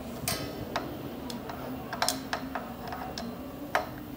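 Irregular light metal clicks of a long Allen key working the screws that hold a Kaleido coffee roaster's drum, as they are snugged down, about eight clicks in all.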